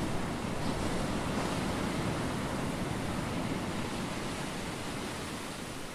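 Ocean waves and surf, a steady rushing wash of noise that slowly fades.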